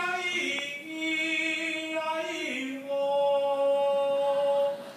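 A man singing long, drawn-out held notes that step down and back up in pitch, the last note held for about two seconds before it stops.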